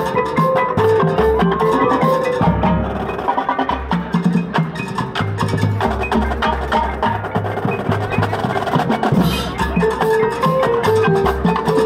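Marching drumline playing a fast percussion passage: Pearl tenor drums struck in quick runs over bass drums hitting low notes in rhythm, with pitched mallet percussion carrying a melody on top.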